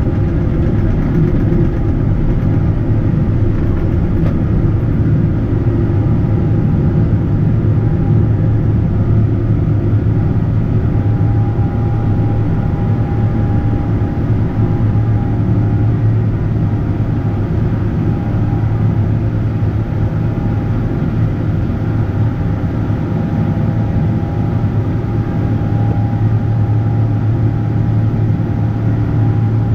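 Cabin noise of a Boeing 777-300ER heard from a window seat: its GE90 engines and airflow make a loud, steady drone, with a strong low hum and a faint steady whine above it.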